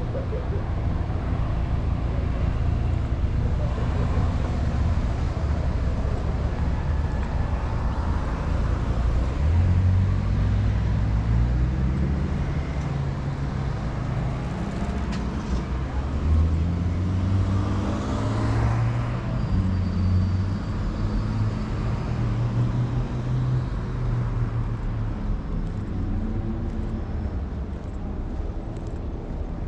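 Street traffic: motor vehicles passing, their engine notes rising and falling, with one going by close just past the middle, over a steady low rumble.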